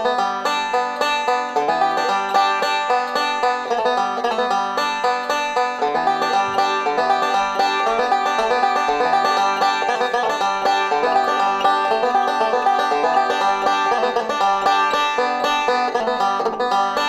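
Five-string resonator banjo fingerpicked at full tempo in a steady stream of rolls, with pull-offs, hammer-ons and slides, playing an old-time tune.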